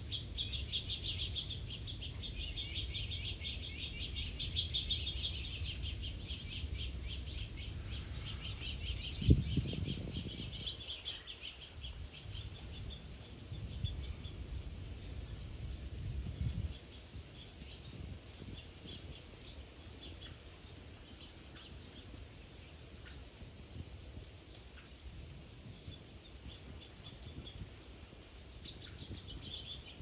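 Small songbirds chirping: a dense run of rapid twittering for about the first ten seconds, then scattered single high chirps. A low thump about nine seconds in.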